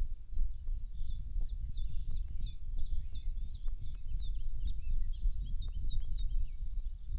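A songbird singing a fast run of short, high, downward-sweeping notes, about three a second, over a steady low rumble and a few faint ticks.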